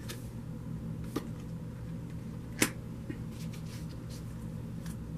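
Tarot cards being handled as one card is drawn from the deck and laid on the table: a few light clicks and one sharp card snap about two and a half seconds in, over a steady low hum.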